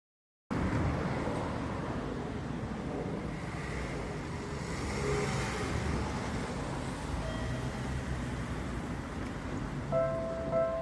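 Steady street and traffic noise by a Japanese railway level crossing; about a second before the end, the crossing's electronic warning bell starts ringing, a repeating two-tone ding about every 0.6 s, signalling that a train is approaching.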